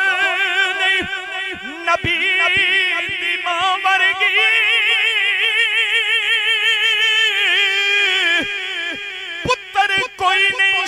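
A man singing a Punjabi manqabat in praise of Imam Hussain into a microphone, drawing the line out into one long wavering note with a wide vibrato in the middle, unaccompanied.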